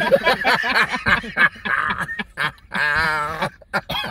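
Several men laughing hard: a run of rapid, choppy laughter, then one long, wavering cackle about three seconds in.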